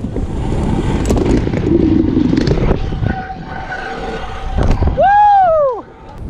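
Wind rushing past a helmet-mounted camera and scooter wheels rolling fast down a mega ramp's roll-in, with a knock of the landing about four and a half seconds in. This is followed by a loud, high whoop that rises and falls for under a second.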